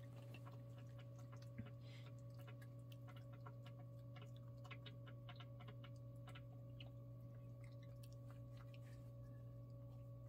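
Near silence: a steady low electrical hum with faint, scattered soft clicks from a puppy quietly chewing a kibble treat.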